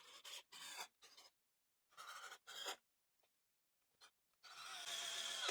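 Faint scraping and handling sounds of a clamp being set on glued pine pieces, in several short scratchy patches, with a slightly longer faint hiss near the end.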